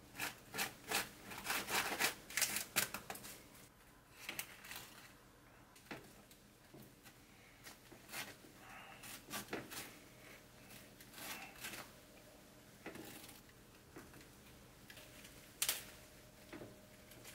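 Metal spoon scraping over crisp toasted bread while spreading sauce and cream cheese: a quick run of dry scrapes in the first three seconds, then scattered single scrapes and clicks.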